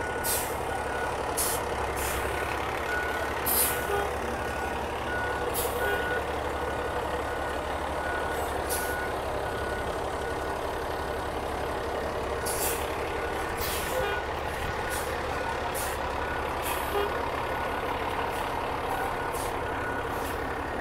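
Fire apparatus diesel engine idling with a steady low rumble. A high back-up beeper sounds at intervals through the first half, and short sharp air hisses from the air brakes break in repeatedly.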